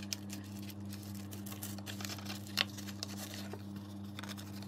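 Hands handling and folding a cut card-stock pop-up card insert: light paper rustles and small taps, with one sharper click about two and a half seconds in, over a steady low hum.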